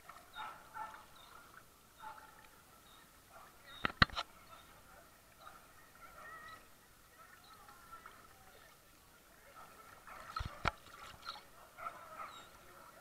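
Quiet sounds from a camera held at the water's surface: a faint steady high tone with a few faint distant calls or voices, broken by two sharp knocks about four seconds in and about ten and a half seconds in.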